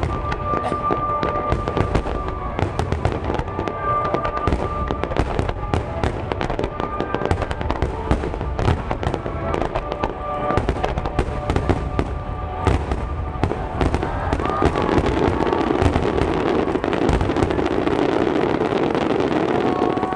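Aerial fireworks shells bursting in a rapid, continuous barrage of bangs, with music played over loudspeakers beneath them. In the last few seconds a dense steady rush of noise swells under the bangs.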